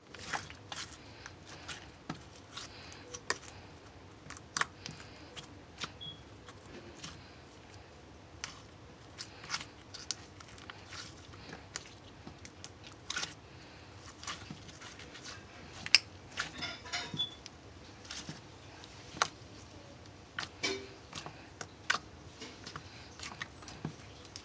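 Slime being squeezed and stretched by hand, giving irregular sticky clicks and pops, with quick clusters of them now and then.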